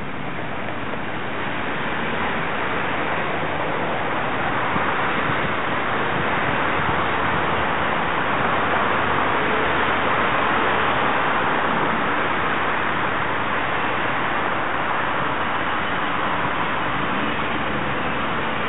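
Steady rushing outdoor city ambience: an even hiss with no single sound standing out.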